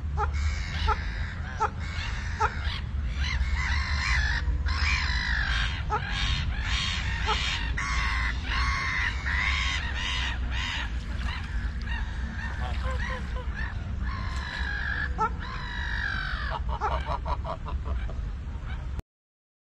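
A group of domestic waterfowl calling, a rapid, uneven run of honking and quacking calls that is busiest in the middle, over a steady low rumble. The sound cuts off abruptly just before the end.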